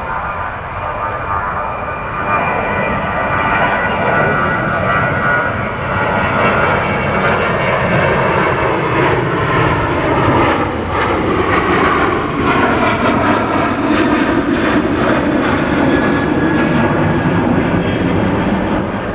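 Airliner's engines passing close by, a loud, steady rush with tones that glide in pitch as it goes past.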